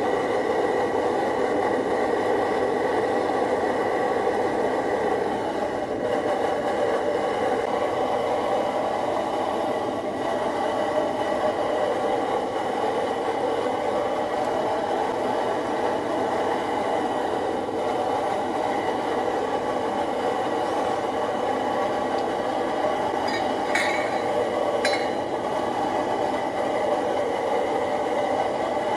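MSR DragonFly pressurised liquid-fuel stove burning steadily at full flame under a pot, a loud even rushing noise. Two brief clicks near the end.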